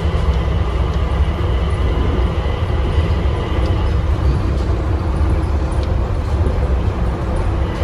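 Automated airport people-mover train running through a tunnel, heard from inside the car: a steady low rumble with a faint, even whine above it.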